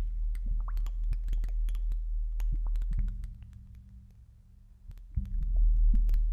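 Live experimental electronic music played on synthesizers: a deep bass drone with a fainter steady tone above it, scattered with sharp clicks and crackles. The drone fades away about three seconds in, leaving mostly clicks, and comes back loud about five seconds in.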